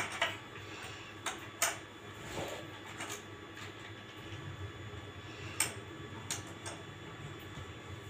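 A few scattered light clicks and taps of plastic toy cars being handled, over a faint steady low hum.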